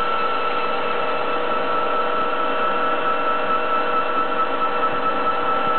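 Commutator turning lathe running, giving a steady machine hum with a constant high whine.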